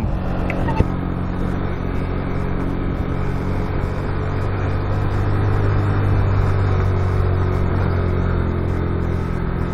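Motorcycle engine running steadily at low revs with wind and road noise, slightly louder around the middle.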